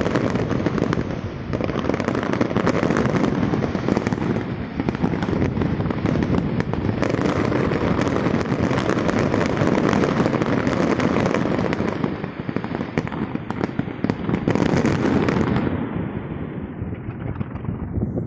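Fireworks display: a dense, rapid barrage of bangs and crackling that eases off about fifteen seconds in.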